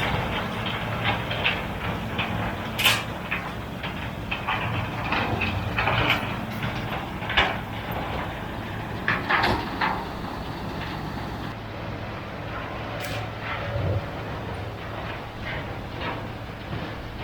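Tractor engine running steadily, with repeated metallic clanks and rattles.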